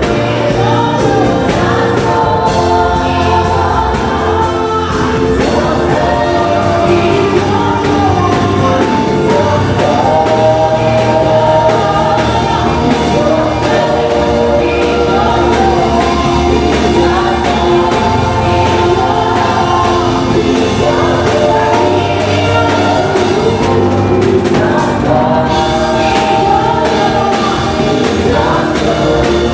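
Gospel worship song: a choir singing over steady instrumental backing with a low bass line.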